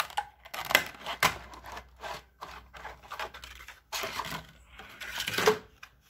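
An SSD in its clear plastic blister pack being handled and shifted on a wooden desk: an irregular run of plastic clicks, taps and scraping, busiest about four to five and a half seconds in.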